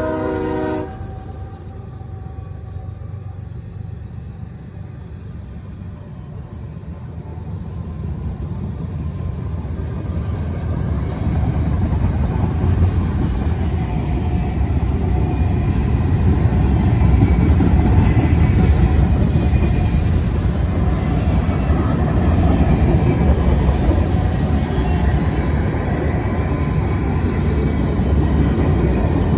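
A train horn cuts off under a second in, then a passing train's low rumble grows steadily louder and holds.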